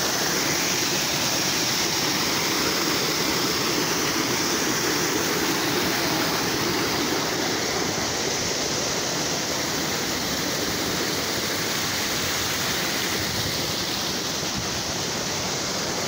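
Small waterfall pouring over rocks: a steady rush of falling water that eases slightly over the last few seconds.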